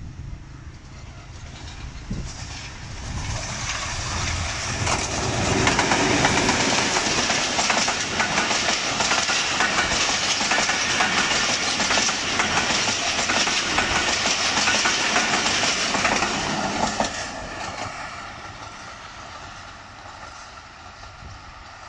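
Diesel-hauled passenger express train passing at speed: the locomotive comes up, then the coaches' wheels clatter over the rail joints in a loud, dense rush, which dies away after about seventeen seconds as the last coach draws off.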